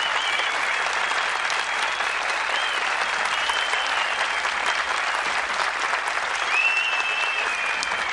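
Large audience applauding steadily, with several high whistles rising and falling over the clapping, the longest one near the end.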